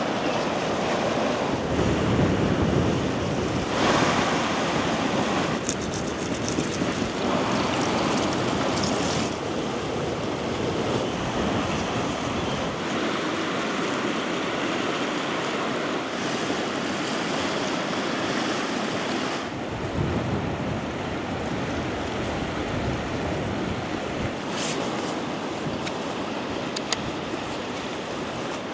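Sea waves washing onto the shore, with wind on the microphone. The surf sound shifts abruptly several times.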